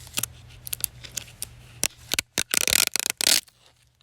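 Adhesive plastic being peeled off a metal detector by hand: scattered crackles and clicks, then a louder stretch of tearing and rustling about two and a half seconds in that stops abruptly.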